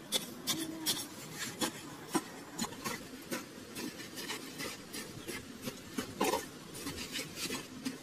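A metal blade scraping and chopping into dry sandy soil in short, irregular strokes, with one louder scrape about six seconds in.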